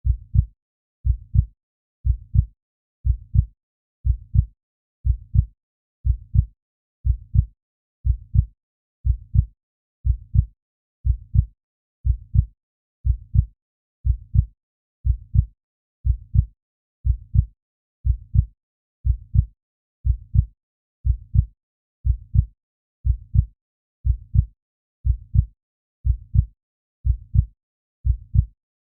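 Heartbeat sound effect: a steady lub-dub, each beat a pair of low, dull thumps, repeating about once a second.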